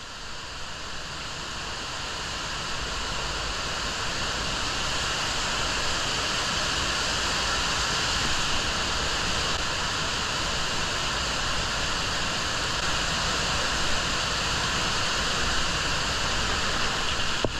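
Steady rushing noise of a large underground waterfall pouring down a cave shaft, with spray and dripping water. It grows a little louder over the first few seconds, then holds. The noise is the sign of a large volume of water flowing.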